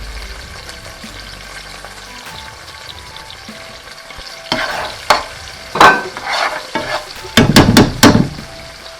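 Sauce of garlic, onion and soy and chilli sauce sizzling in hot oil in a pan. About halfway through, a spoon starts stirring and scraping loudly against the pan, with a quick run of sharp knocks near the end.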